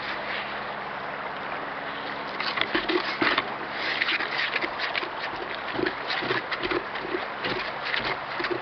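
Damp sand and cement being stirred in a large bucket with a mixing stick: irregular scraping and gritty knocking strokes that start about two and a half seconds in, over a steady background hiss.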